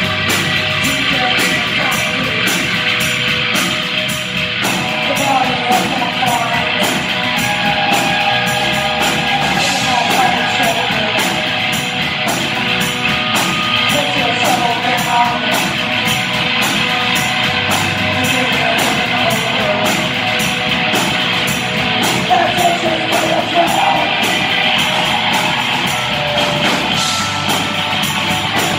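Live rock band playing loud with electric guitars, bass guitar and a drum kit, keeping a steady beat throughout.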